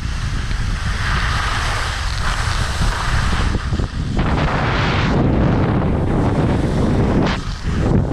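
Wind buffeting the microphone during a downhill ski run, with the hiss of skis sliding over snow that swells and eases as the run goes on.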